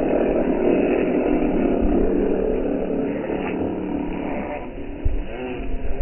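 Gull calls and splashing water played back slowed down several times, so the calls become deep, wavering, drawn-out glides over a low rumble. A dull thump about five seconds in.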